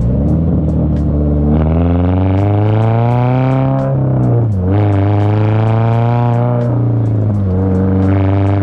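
Toyota GR86's 2.4-litre flat-four, breathing through a Tomei 60S titanium cat-back exhaust, pulling under acceleration: the engine note rises, drops at a gear change about four seconds in, then climbs again. Background music with a steady beat runs underneath.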